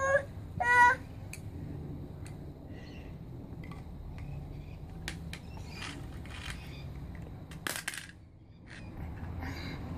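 A small child's two short high-pitched wordless squeals in the first second, followed by faint scattered clicks and rustling of handling.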